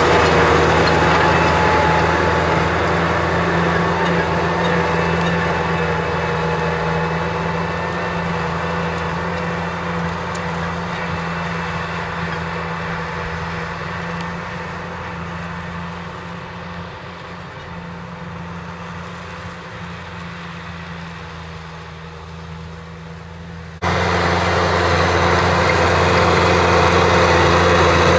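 Kubota M6040SU tractor's diesel engine running steadily under load as it pulls a disc plough through dry field soil. The sound fades slowly as the tractor draws away, then jumps back to full loudness close up near the end.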